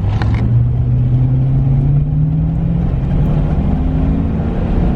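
1986 Chevy Caprice's V8 pulling hard at full throttle from a stop, heard from inside the cabin: the engine note climbs steadily over the first couple of seconds, then holds high. It accelerates cleanly with no hesitation, the lag cured by a new distributor and properly connected grounds.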